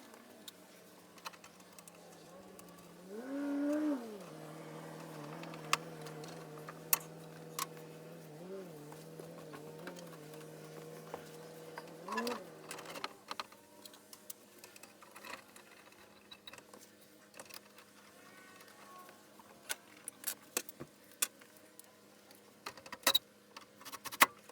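Sped-up work sounds: a small motor hums at a steady pitch that swoops up and down a few times, then stops about halfway through. Scattered sharp clicks and knocks follow.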